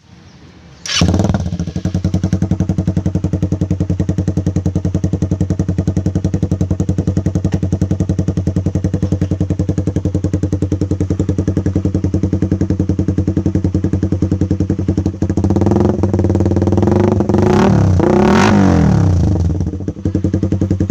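Suzuki Raider 150's single-cylinder four-stroke engine, through a loud aftermarket exhaust, starts about a second in and idles with an even, rapid pulse. It is then revved, with two quick blips near the end.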